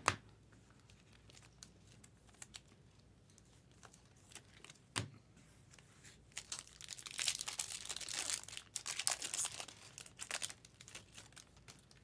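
Foil wrapper of a Topps Chrome baseball-card pack being torn open and crinkled. There is a dense run of crackling from about six seconds in until near the end, after two light knocks, one at the start and one about five seconds in.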